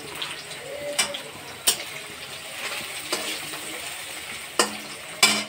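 Sliced onions sizzling as they fry in hot oil in a steel karahi, with a spatula stirring them and knocking sharply against the pan four times, the loudest knocks near the end.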